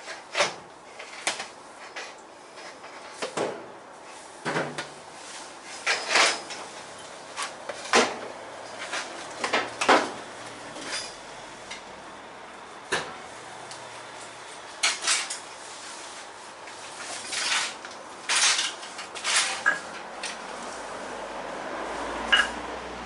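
Spot welding on a classic Mini's boot floor: about a dozen short, sharp crackling bursts, each one weld, spaced irregularly a second or two apart.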